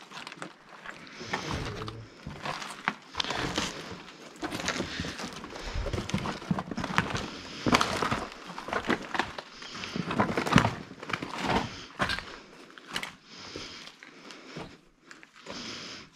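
Footsteps crunching and scraping over broken plaster and brick rubble, with irregular knocks of debris shifting underfoot.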